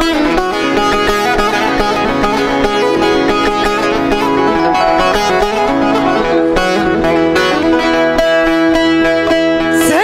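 Instrumental interlude of a Turkish folk song (türkü): a plucked string instrument plays a quick run of notes over steady backing accompaniment, with no singing.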